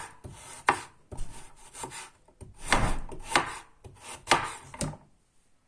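Kitchen knife slicing raw carrots into thin rounds on a wooden cutting board: a series of crisp, irregular cuts, each ending in a tap of the blade on the board, about seven or eight in all, stopping near the end.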